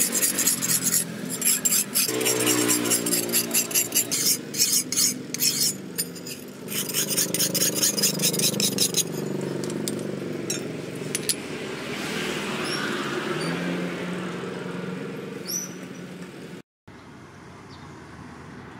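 A sharpening stone rasping in quick repeated strokes along the edge of a forged steel billhook blade for the first several seconds. An engine hums underneath and carries on steadily after the strokes stop.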